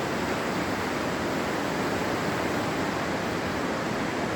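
Steady, even rushing of the Niagara River's fast rapids in the gorge.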